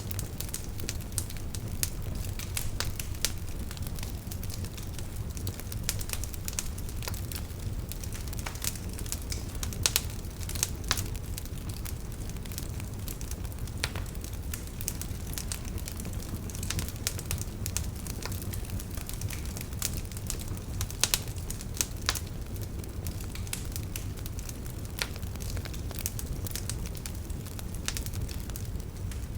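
Wood fire burning with a steady low rumble and irregular crackles and sharp pops, a few louder snaps among them.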